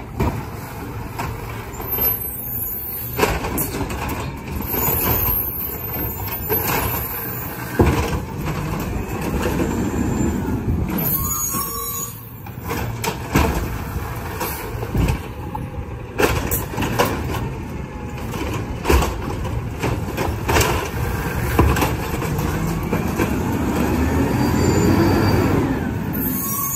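Peterbilt 320 recycling truck with an Amrep automated side-loader: the engine and hydraulic arm run as the arm grabs, lifts and dumps recycling carts, with repeated bangs of the carts and clatter of the recyclables falling into the hopper. Near the end the engine revs up as the truck pulls forward.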